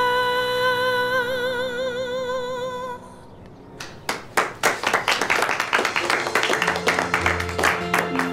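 A woman's voice holds the long final sung note of a song, with vibrato, over piano accompaniment, and breaks off about three seconds in. After a brief pause a small group of people applauds.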